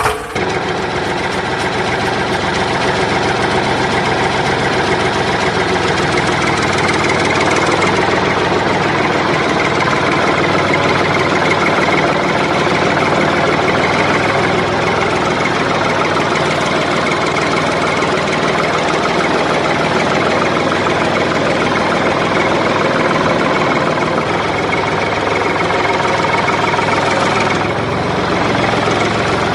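Truck engine idling steadily.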